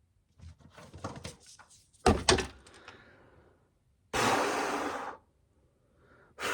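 Ears of corn being handled and set in place: a run of light knocks and clatters, then a heavy thunk about two seconds in, followed by a second-long rushing, scraping noise.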